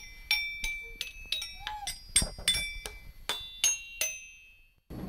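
Short intro jingle of about a dozen bright, ringing chime-like notes, the last one ringing out.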